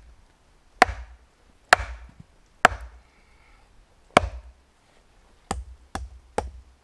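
Condor Bushcraft Parang chopping into a short log on a wooden stump to split it, the blade stuck in the log and both brought down together onto the stump. There are four heavy wooden chops about a second apart, then after a short pause three lighter, quicker knocks near the end.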